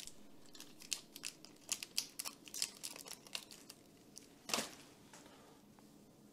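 Plastic backing sheet crinkling and crackling in the hands as squares of white adhesive putty are peeled off it: many short crackles, with one louder tearing crackle about four and a half seconds in.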